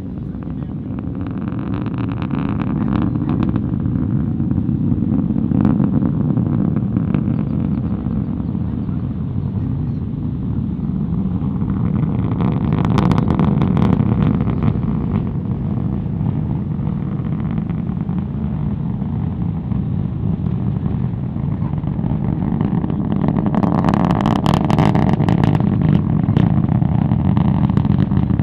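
Distant rumble of the SpaceX Starship SN11 rocket launch heard through thick fog: a low, steady rumble that builds over the first few seconds and swells twice, about halfway through and near the end.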